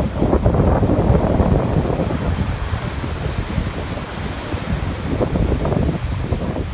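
Rough surf from a sea stirred up by an approaching typhoon, with strong gusty wind buffeting the microphone.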